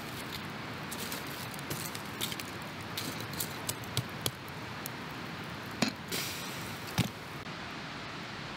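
A few sharp clicks and knocks over a steady hiss; the two loudest come about six and seven seconds in.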